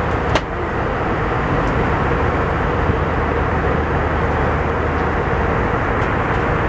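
Airliner cabin noise in flight: a steady roar of engines and rushing air with a low hum underneath. A single short click about half a second in.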